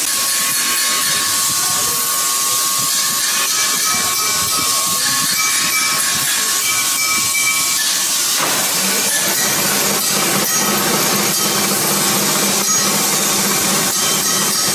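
Loud steady hiss throughout. About eight seconds in, a metal lathe turning a brass piece joins it, with a low hum and irregular scraping from the cutting tool.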